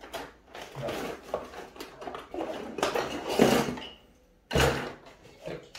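Small plastic and metal RC-car parts being handled and rummaged through on a table: irregular clicks and rustling, with one sharper knock about three-quarters of the way through.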